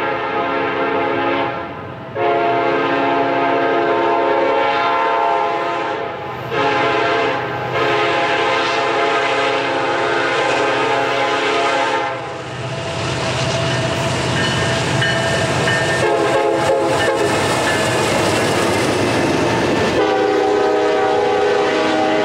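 Approaching diesel freight locomotive's multi-chime air horn sounding the grade-crossing signal: the tail of one blast, then long, short, long, with short gaps between. The locomotive's engine and its wheels on the rails then pass close by for several seconds, and the horn sounds again near the end as the double-stack container cars roll by.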